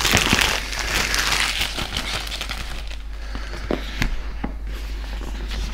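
Thin plastic shrink-wrap being pulled off a cardboard tablet box, crinkling and crackling densely for about the first two seconds, then in sparser crackles and a few clicks.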